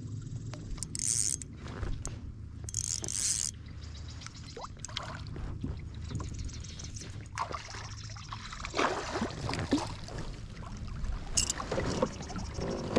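Water splashing and lapping around a fishing kayak, with a steady low rumble and scattered short knocks and rustles of gear being handled on board.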